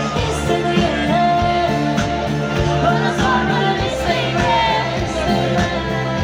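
Pop song with a singer over a band and a steady drum beat.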